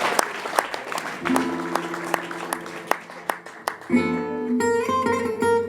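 Applause dying away with scattered claps as an acoustic gypsy jazz guitar comes in: a held chord about a second in, then plucked notes and chords from about four seconds in.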